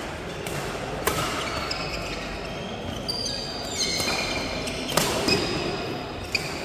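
Badminton rackets striking the shuttlecock in a fast doubles rally: four sharp smacks, two of them close together about five seconds in. In between come short high-pitched squeaks of shoes on the court floor.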